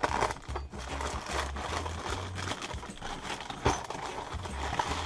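Background music with a steady bass line, over crinkling and rustling of plastic packaging being handled.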